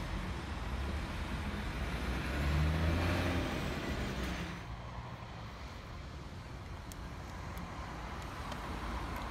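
Traffic moving through an intersection, with a diesel engine passing close and loudest about three seconds in. After a sudden drop in level just before the middle, a city bus's diesel engine runs steadily, growing slowly louder toward the end.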